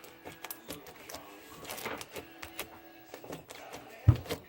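Beaded slime being squeezed and worked by hand: irregular rapid clicks and crackles from the beads, with one dull thump about four seconds in.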